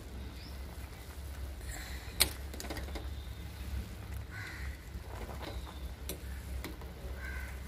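Steel ladle stirring cubes of petha in sugar syrup boiling in a stainless-steel pot, over a steady low hum. The ladle gives one sharp clink against the pot about two seconds in and lighter knocks later.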